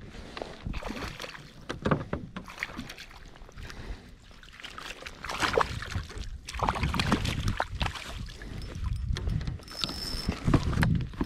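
Water splashing as a hooked perch thrashes at the surface beside a kayak and is scooped into a landing net, with irregular knocks and rustles of handling against the kayak.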